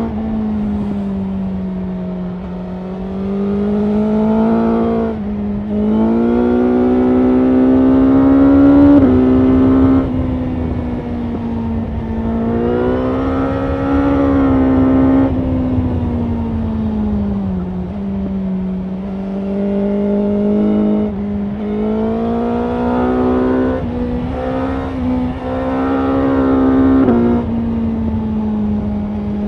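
BMW S1000R's inline-four engine and exhaust under hard riding. The engine note climbs and falls with the throttle, dropping sharply at several quick gear changes, over a steady rush of wind at speed.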